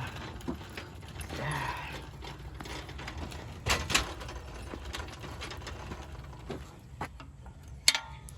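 Scattered light metal clicks, rattles and knocks from the newly assembled hand truck dolly being handled, with two sharper knocks about halfway and a loud click with a short ring near the end.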